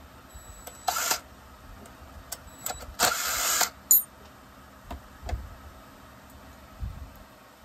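Cordless drill-driver spinning briefly twice, a short run about a second in and a longer one about three seconds in, backing screws out of a Husqvarna 357XP chainsaw. A sharp click follows, then a few light knocks as parts and the drill are handled.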